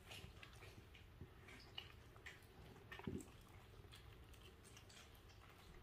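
Near silence with faint wet clicks and smacks of a Welsh corgi mouthing and tearing at a raw duck carcass, and one louder short wet sound about three seconds in.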